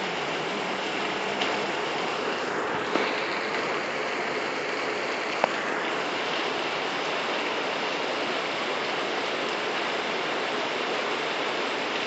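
Heavy rain pouring steadily onto a paved street and rooftops, with water running along the road. A few sharp single taps are heard over it, the loudest about five and a half seconds in.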